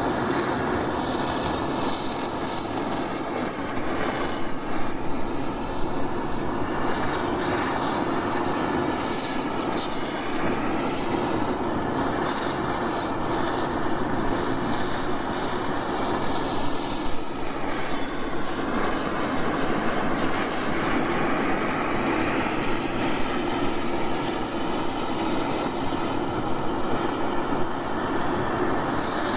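Oxy-acetylene torch burning with a steady rushing hiss, with scattered knocks and clanks of metal being struck, a few louder ones about four to six seconds in.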